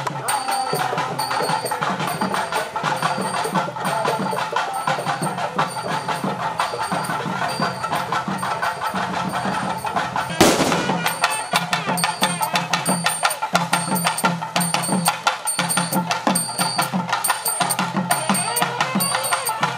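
Processional hand drums beaten in a fast, steady rhythm, with a high ringing tone recurring in time with the beat. One loud knock about halfway through.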